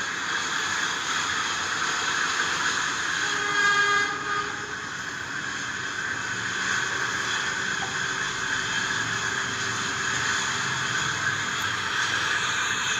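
Diesel locomotive engine accelerating, running steadily loud, with a short tone about four seconds in and a deeper rumble building through the second half.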